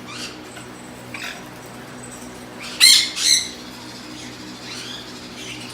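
Nanday conure calling: two loud, short calls close together about three seconds in, with a few fainter calls around them.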